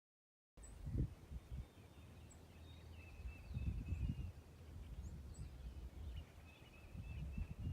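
Low, gusty rumble of wind buffeting the microphone outdoors, starting abruptly about half a second in after dead silence, with small birds chirping in the background.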